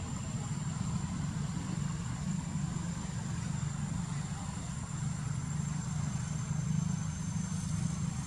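Steady low engine-like hum with a thin, steady high whine above it.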